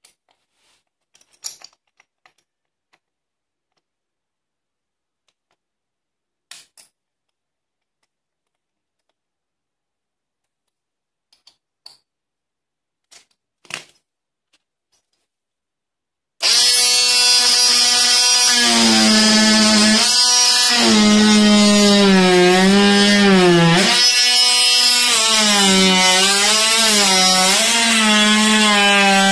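Cordless oscillating multi-tool with a round segment saw blade: a few faint handling clicks as the blade is fitted, then a little over halfway through it switches on suddenly and runs loudly with a steady buzzing hum. Its pitch dips and wavers as the blade is pressed into the wooden floor to cut.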